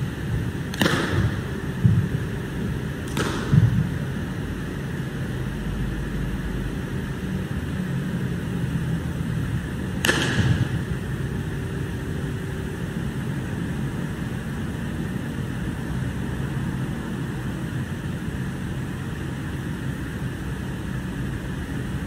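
A wushu changquan routine heard through its movements: three sharp slap-like hits, about one, three and ten seconds in, and dull thuds of feet landing on the competition carpet soon after the first two. A steady low hum runs underneath.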